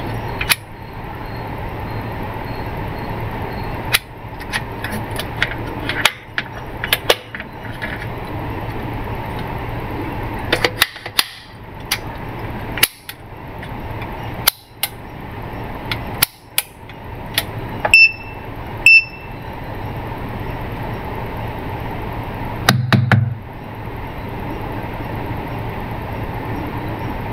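Clicks and knocks from handling a Mastech MS2128A clamp meter: the dial and buttons being worked and test-lead plugs pushed at its input jacks. Past the middle come two short, high beeps a second apart from the meter's buzzer. A steady background hum and hiss runs underneath.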